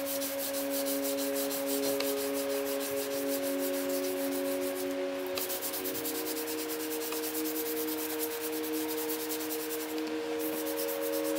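Lacquered teak wood bowl being hand-sanded with sandpaper to strip its old lacquer: quick back-and-forth scratchy strokes, pausing briefly about halfway and again near the end. A soft held musical drone of several notes plays underneath and changes chord about halfway through.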